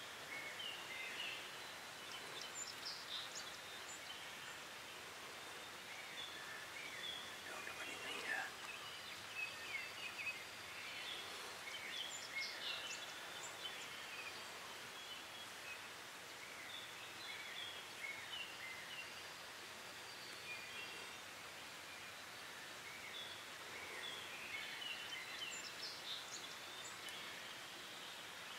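Outdoor spring ambience: small birds chirping off and on over a steady background hiss, with a louder call reaching lower in pitch about eight seconds in.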